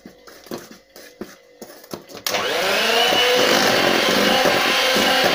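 Electric hand mixer beating flour into batter in a steel bowl. At first it runs quietly, with scattered clicks and knocks. A little over two seconds in it jumps to a loud, steady motor whine as it goes to a higher speed, its pitch rising briefly and then holding.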